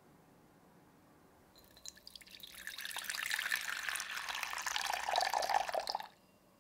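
Water poured in a thin stream into a glass measuring cup, splashing as the cup fills. The pour starts about two seconds in and stops abruptly near the end.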